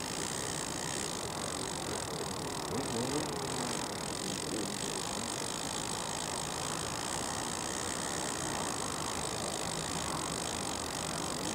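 Steady, even background hiss of the lakeside ambience, with faint voice-like sounds about three seconds in. No bite alarm sounds.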